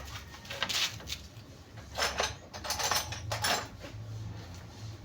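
Metal clinks and scraping of tools and wires being handled while a test-light circuit is rigged to the alternator: a short clatter about a second in, then a run of clatters and scrapes between two and four seconds in.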